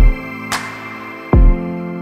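Background music: held synth chords with a deep, falling bass hit about every second and a half and a short sharp snap between the hits.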